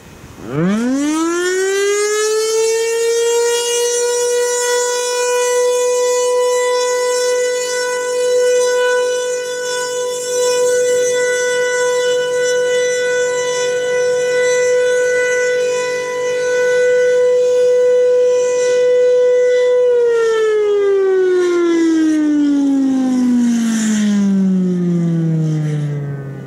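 Federal Signal Thunderbolt 1000 single-tone outdoor warning siren sounding its steady alert signal for a test: it winds up fast to one steady tone about half a second in, holds it for roughly twenty seconds, then winds down with a long falling pitch.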